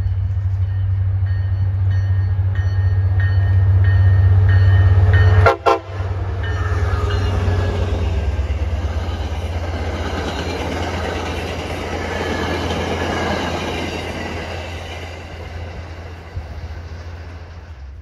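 MBTA commuter train passing close by. A steady diesel rumble with horn notes in the first few seconds, then a brief break, then the rushing clatter of the coaches' wheels on the rails, which builds and fades away toward the end.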